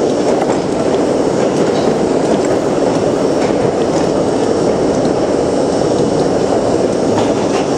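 New York City subway train running through a tunnel, heard from inside the front car: a loud, steady rumble of wheels on rail with a few light clicks.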